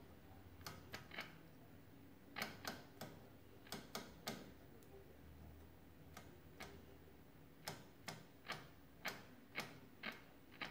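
Faint, sharp clicks at irregular intervals, singly and in quick runs of two or three, from the controls of a 1948 Sentinel 400TV portable television being turned, such as its rotary tuner switch stepping through its positions. A faint steady low hum runs underneath.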